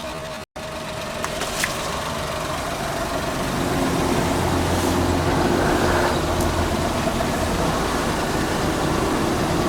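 A car engine running steadily, growing louder from about three to four seconds in. There is a split-second cut to silence half a second in.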